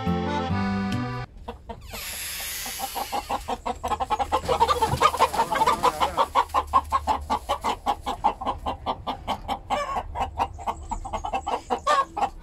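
Accordion music cuts off about a second in, followed by a brief rustling noise. Then Araucana chickens give a rapid, unbroken run of clucks, several a second, the agitated alarm clucking of startled hens.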